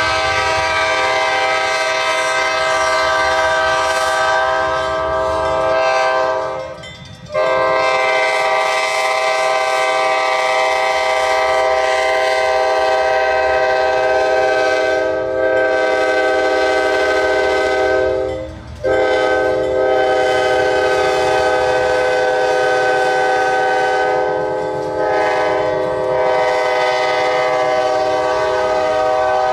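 Diesel locomotive multi-chime air horn blowing long chord blasts for the road crossing, cut off briefly about 7 and 19 seconds in, over the low rumble of the passing freight train.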